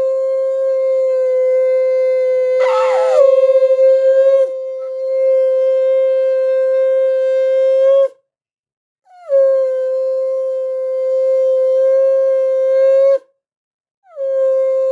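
Conch shell (shankha) blown in long held blasts of one steady pitch, each several seconds long and starting with a slight downward scoop, with short breaks between them. Near 3 seconds in, a brief wavering note sounds over the blast.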